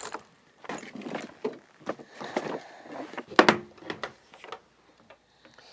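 Handling noises: irregular scraping and rustling with a few sharp knocks, the loudest knock about three and a half seconds in, dying down near the end.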